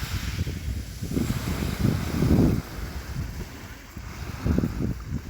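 Sea waves washing and splashing, with wind buffeting the microphone in uneven gusts; the strongest gust comes about two seconds in.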